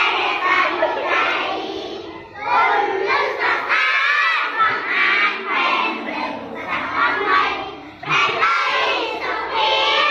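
Many children's voices chanting together loudly in unison, in phrases with brief breaks.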